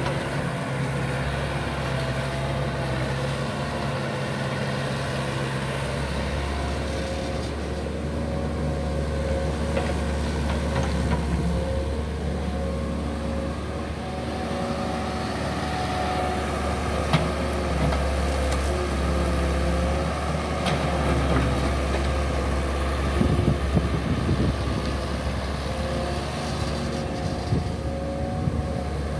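Mini excavator's diesel engine running steadily under working load as the boom, arm and bucket swing and dig, with its tone shifting as the hydraulics work. A few sharp knocks of the bucket in the dirt stand out, one about two-thirds of the way in and a cluster later on.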